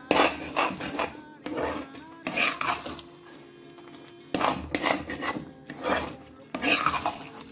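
Metal spatula scraping and stirring thick, sticky apple halwa in a kadai, in repeated strokes of about one or two a second.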